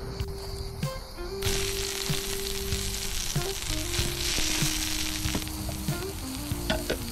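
Food frying in a hot pan, a sizzle that starts about a second and a half in and stops about four seconds later, over background music with long held notes.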